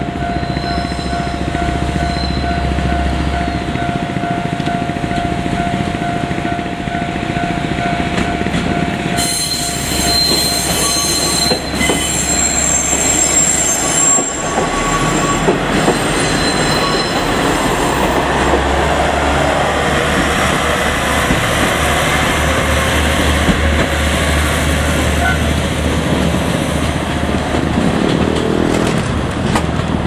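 Two-car JR Kyushu KiHa 47 diesel railcar running past, its diesel engine rumbling steadily. High-pitched wheel squeal comes in for several seconds about a third of the way in. A level-crossing bell dings repeatedly in the background.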